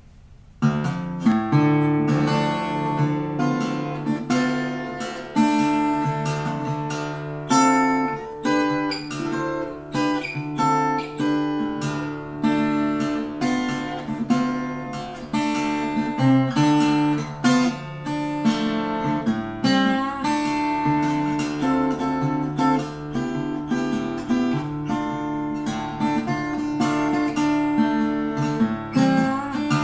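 Small-bodied acoustic guitar fingerpicked, a continuous run of plucked, ringing notes that begins about half a second in.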